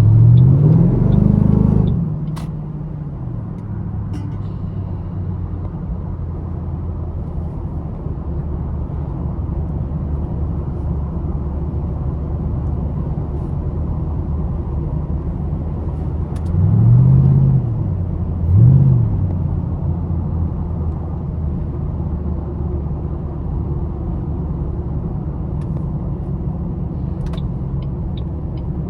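2008 Ford Mustang GT's 4.6-litre V8 heard from inside the cabin while driving: a steady engine and road drone, with the revs climbing and dropping back at the start and twice more about two-thirds of the way through. A run of quick, evenly spaced ticks comes near the end.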